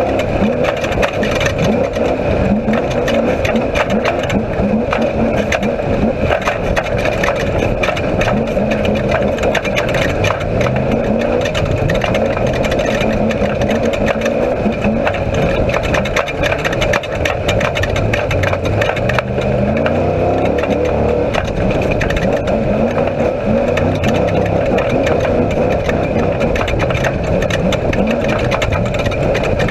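Off-road race vehicle's engine heard from inside the cockpit, its pitch rising and falling as the throttle changes. A constant rattle and clatter from the chassis runs over it as the car drives across rough dirt.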